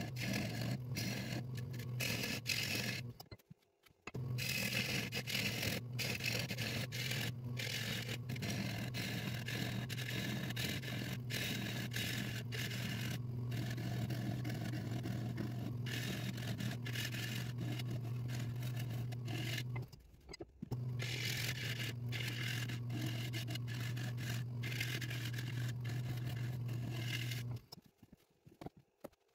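Nova 3000 wood lathe running with a steady low hum while a half-inch bowl gouge scrapes and cuts the spinning acacia bowl's bottom, taking off the tenon, with many small ticks from the cut. The sound drops out briefly twice and falls away near the end as the lathe stops.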